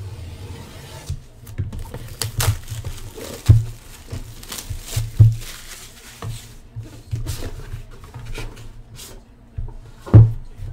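Plastic shrink wrap crinkling and tearing as a sealed trading-card hobby box is cut open and unwrapped, with irregular rustles and clicks. Several sharp knocks come as the cardboard box and its metal tin are set on the table, the loudest near the end.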